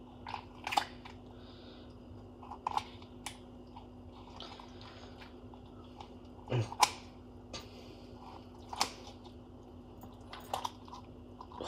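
Kitchen scissors snipping and crunching through a roast chicken's skin and rib bones: a string of separate sharp snips, the loudest about six and a half seconds in, over a faint steady hum.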